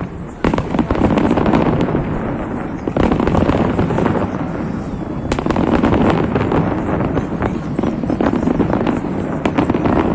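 A fireworks display going off in a dense, unbroken barrage of overlapping bangs and crackles, with a brief lull about half a second in.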